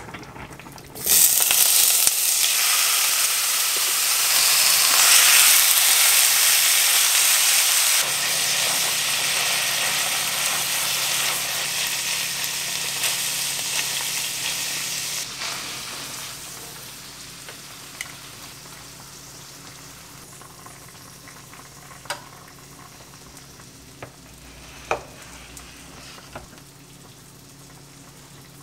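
Thin-sliced pork bulgogi frying in hot oil in a nonstick frying pan, a loud sizzle that starts suddenly about a second in as the meat hits the pan, stirred with a wooden spatula. The sizzle fades over the second half, with a few sharp clacks near the end.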